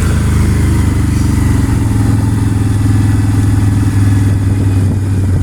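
A small vehicle engine, most likely a farm bike, runs steadily at low, even revs while moving slowly.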